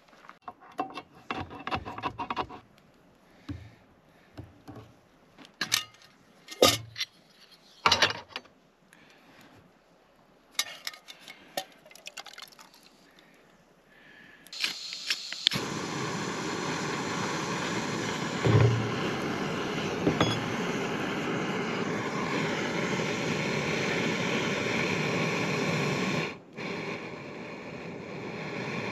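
Clinks, knocks and scrapes of cooking utensils and dishes, then about halfway a loud, steady hiss sets in suddenly and runs on, broken once by a brief dropout near the end.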